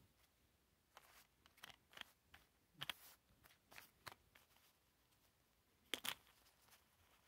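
Faint clicks and light rustling as small miniature toy pizza boxes are picked up, set down and slid open by hand, with a run of small taps early on and a sharper double click about six seconds in.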